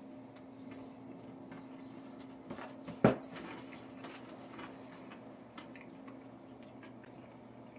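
Chewing a mouthful of cold, crispy fried chicken with dentures: faint, scattered crunches and clicks, with one sharp knock about three seconds in.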